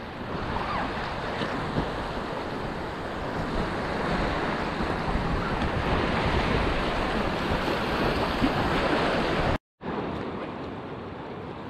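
Swift, silty river current rushing and splashing around a packraft through a riffle, with wind buffeting the microphone. The sound cuts out for an instant about ten seconds in and is a little quieter after.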